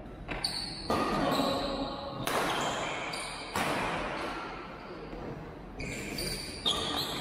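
Badminton rally: sharp racket strikes on the shuttlecock, about six at uneven spacing of roughly one to two seconds, each ringing on in the echo of a large hall.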